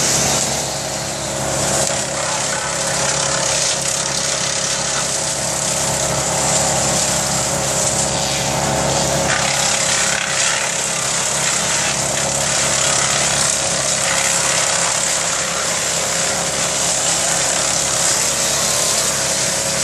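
A small engine running steadily at a constant speed, without revving.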